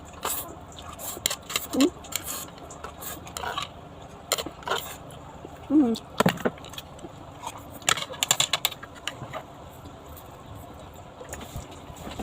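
Eating from a bowl of noodles: utensils click and clink against the dish in irregular taps, with a couple of short voiced mouth sounds in between.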